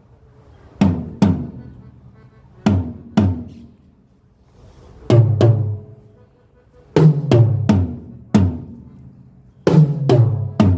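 Acoustic drum kit toms struck one at a time and in quick pairs during a soundcheck, each hit ringing out and dying away before the next. From about five seconds in the hits are lower and heavier, like the floor tom.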